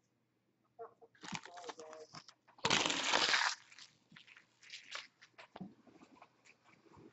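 A person's short voiced sounds, then a loud rush of breath about three seconds in, followed by a few faint clicks.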